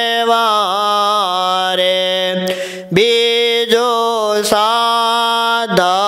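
A man sings a Gujarati devotional bhajan solo, drawing out long held notes that bend and waver in pitch. A steady low drone runs beneath the voice. About two and a half seconds in he breaks briefly for breath, then sings on.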